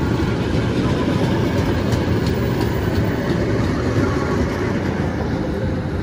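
KAI intercity passenger coaches passing through on the rails: a steady rumble of wheels on track with a few faint clacks, easing slightly near the end as the last coach goes by.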